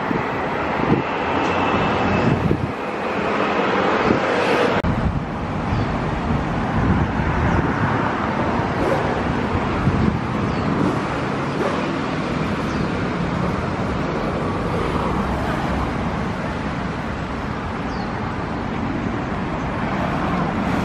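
Street traffic noise: a steady outdoor city hum of road vehicles.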